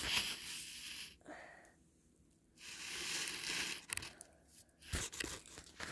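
Small white toy Lamborghini car pushed across a rough floor: its wheels scrape and rustle in three bursts, followed by a few sharp clicks near the end.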